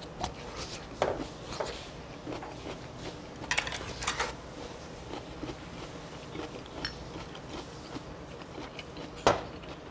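Scattered clinks and knocks of tableware while eating: chopsticks and a bowl, with a few faint taps. Near the end comes the loudest sound, a single sharp glass clink, as a glass soju bottle is poured into a shot glass.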